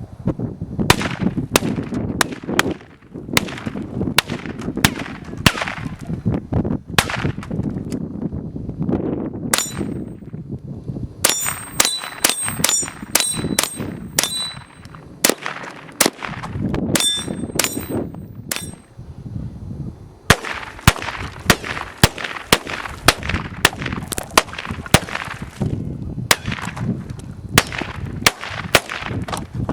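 SIG 522 semi-automatic .22 rifle firing shot after shot, sometimes about two a second, with a brief lull about two-thirds through. Through the middle stretch the shots come with bright metallic pings.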